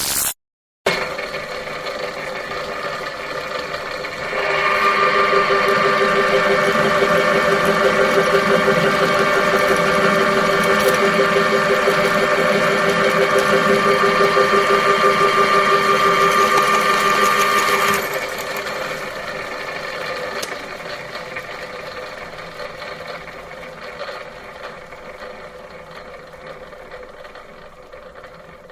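Synthesized science-fiction sound effect: a steady machine-like hum of fixed tones with a fast fluttering pulse. It swells louder about four seconds in, drops back after about eighteen seconds and slowly fades away.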